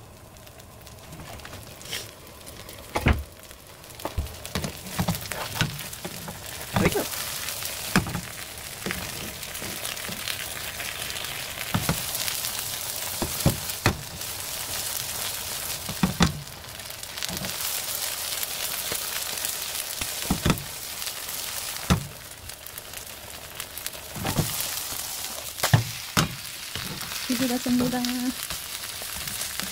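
Oyster pancake batter frying in oil in a nonstick frying pan: a steady sizzle, with scattered sharp clicks over it.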